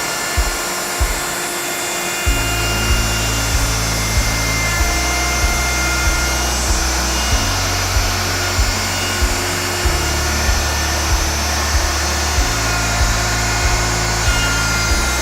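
Background music with a steady beat and a stepping bass line, over the steady whine of a router running.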